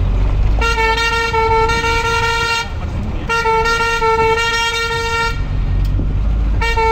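A vehicle horn sounding long, steady blasts of about two seconds each: two in a row, with a third starting near the end. Under it runs the low rumble of a moving vehicle.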